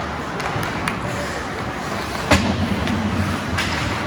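Ice hockey rink noise during play: a steady scraping rush of skates on ice, with a few sharp clacks of sticks and puck, the loudest a little past halfway.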